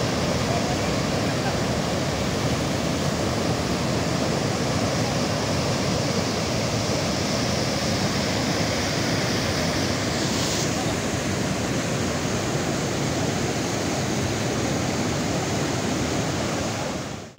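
Muddy floodwater from an overflowing reservoir rushing and churning in a fast torrent: a steady, unbroken rushing of water.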